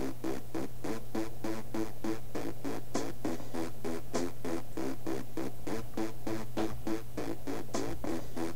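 Loop-based electronic music playing back, with quick, evenly repeating synth stabs over a steady low tone and an occasional bright high tick.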